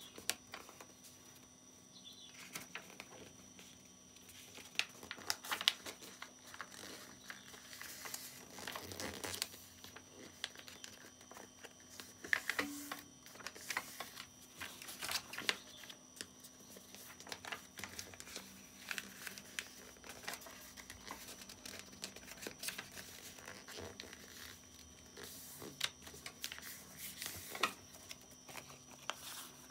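A sheet of paper being folded and creased by hand: irregular rustles, crinkles and short taps, with a faint steady hum behind.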